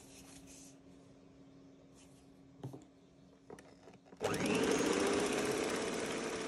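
Electric hand mixer switching on about four seconds in, its motor whirring up and then running steadily as the beaters whip cream with vanilla sugar. Before it starts, a faint steady hum and a couple of light knocks.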